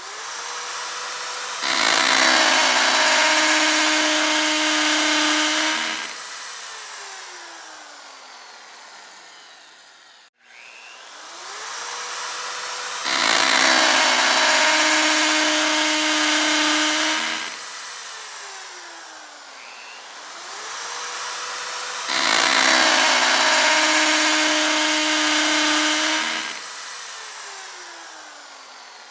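Electric power drill: the motor spins up with a rising whine, bites into material loudly for about four seconds, then winds down with a falling whine. The cycle repeats three times, about every ten seconds.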